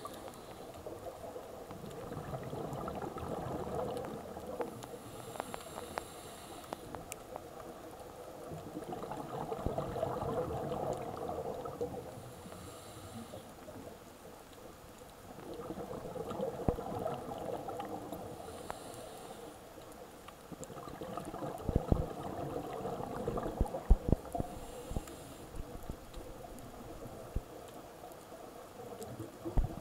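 Scuba regulator breathing heard underwater, about every six seconds. Each breath is a short hiss of inhalation through the demand valve, followed by a longer bubbling rush of exhaled air with scattered pops.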